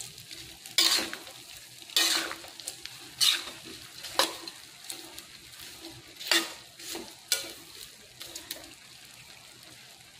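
Mung bean sprouts being stir-fried in a wok: a utensil scrapes and tosses them every second or so over a steady sizzle. The strokes stop near the end, leaving only the sizzle.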